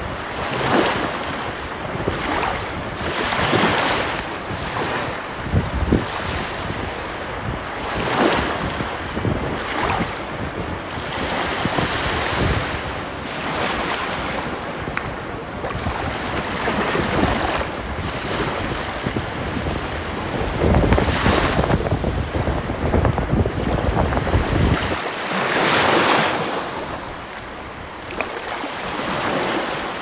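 Sea surf and wind on a beach: a rushing noise that swells and fades every few seconds, with wind gusting on the microphone.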